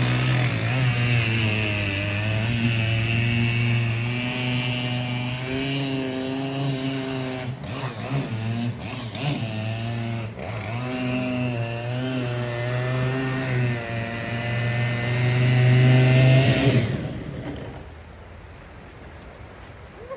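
Stihl 088 chainsaw's two-stroke single-cylinder engine driving a surface-drive boat propeller at high revs, its pitch dipping and wavering, most unsteadily around the middle. It stops a few seconds before the end, leaving the even rush of floodwater.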